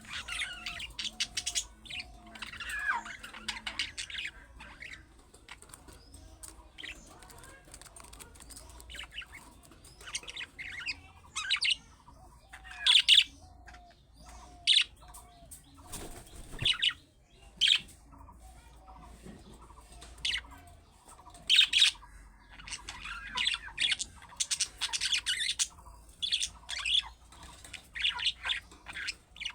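Budgerigars chattering: quick, scratchy chirps and warbles in irregular bursts with short pauses between them.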